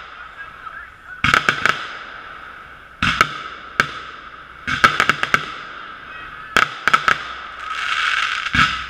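Fireworks going off: shells bursting in groups of sharp bangs and crackles, about six groups a second or so apart, with a spell of crackling near the end. The sound comes through a GoPro's sealed waterproof housing, which muffles it.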